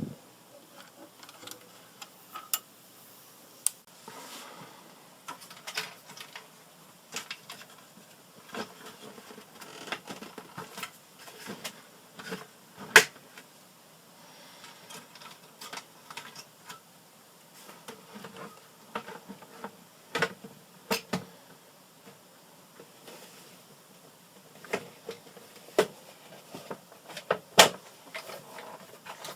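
Irregular light clicks and taps, with a few sharper knocks, about 13 s in and near the end.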